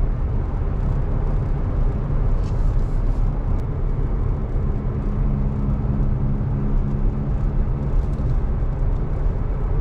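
Toyota Tacoma being driven, with a worn front wheel bearing humming under steady road and tyre noise; the hum grows a little stronger around the middle. The humming is the sign of a bad front wheel bearing.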